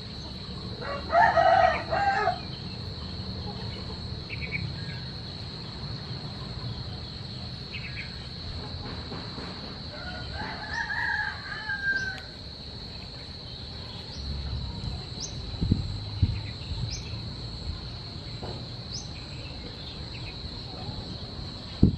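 A rooster crows twice, about a second in and again around ten seconds in, over a steady high-pitched insect drone. A few low thumps come later, the sharpest one near the end.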